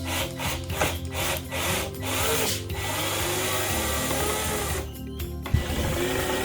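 Power drill running through a right-angle drill adapter while backing out screws. A few rhythmic scraping strokes come first. The drill then runs steadily from about two seconds in, stops briefly near the five-second mark and starts again.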